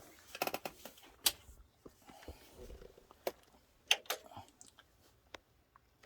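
Scattered sharp clicks and light knocks: one at the start, a quick run of several just under a second in, then a few single ones over the next few seconds.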